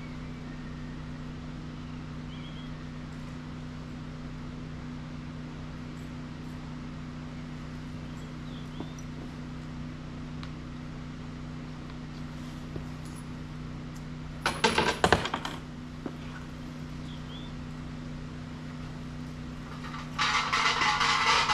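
Coins clatter into a wooden shrine offering box about two thirds of the way through, a brief cluster of sharp clinks. Near the end a shrine's suzu bell is shaken, a jangling rattle lasting about a second and a half. A steady low hum and a few faint bird chirps sit underneath.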